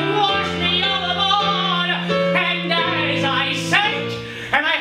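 A man singing a Broadway show tune, with piano accompaniment on a digital keyboard.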